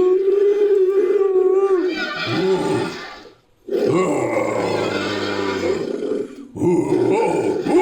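Made-up creature sound effects for a fictional rodent-like ape: one long held call, then a run of growls and roars, broken by a short silence about three and a half seconds in.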